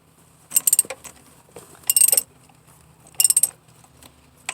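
Ratchet wrench with a 10 mm socket clicking in three short bursts about a second and a half apart, as a bolt is tightened down.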